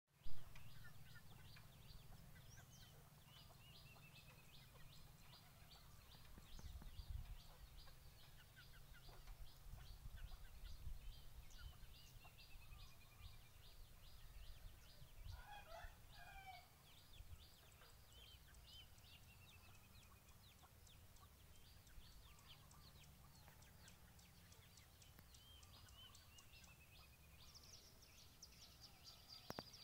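Faint countryside ambience: small birds chirping in quick short notes throughout, with a few falling whistled calls, and a chicken calling once about halfway through. A low rumble runs underneath.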